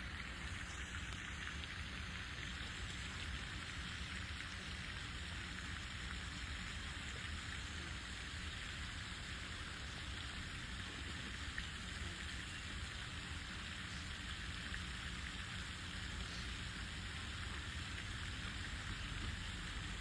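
Steady outdoor hiss of water, like rain falling or running water, even and unbroken, with a low rumble underneath.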